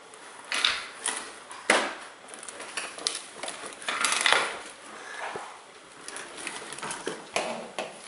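Hard plastic clattering and knocking from a toddler's CAT ride-on toy truck being handled and pushed over a tile floor, its plastic wheels scraping and rolling on the tiles, with several sharp knocks.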